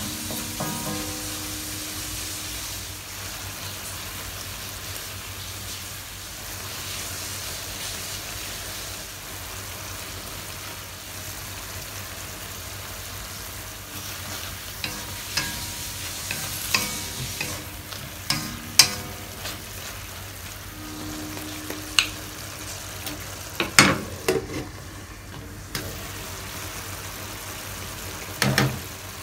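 Luffa and chicken sizzling in a wok as a wooden spatula stirs and scrapes them. From about halfway, the spatula knocks sharply against the wok several times, loudest near the end.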